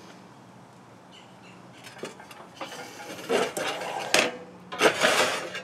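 Freshly snapped tile being handled on a manual tile snap cutter: scraping and clattering of tile on the cutter's metal bed, with a couple of sharp knocks in the second half.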